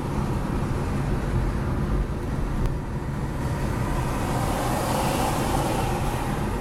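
Steady low rumble of idling vehicle engines and road traffic, with a swell of passing-vehicle noise about five seconds in.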